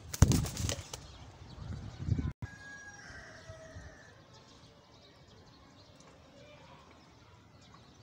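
Pigeon wings flapping in a short flurry of quick claps in the first second, followed by a low rumble and then a faint steady background.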